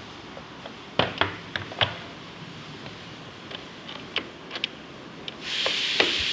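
Scattered small clicks and taps of a screwdriver and plastic parts while a Nerf Stryfe blaster's battery compartment is being opened. About five seconds in, a loud steady hiss starts and drowns the clicks.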